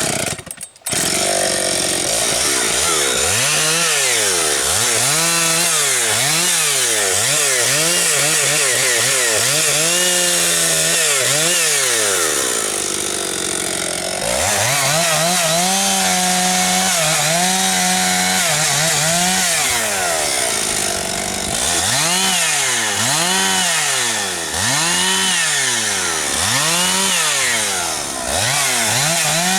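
Husqvarna 272XP two-stroke chainsaw running, revved up and down about once a second, with a few stretches held steady at full throttle. It starts abruptly about a second in.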